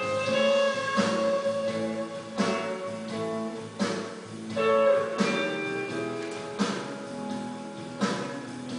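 Background music: guitar chords struck every second or so, with notes ringing on between them.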